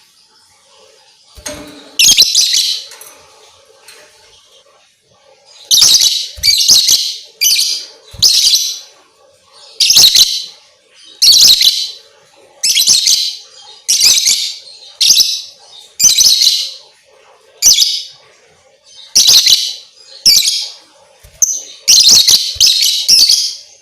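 Lovebird chattering in loud, high chirping bursts, each under a second long: one about two seconds in, then after a short lull a steady run of them about once a second. A lovebird lure recording, played to stir other lovebirds into song.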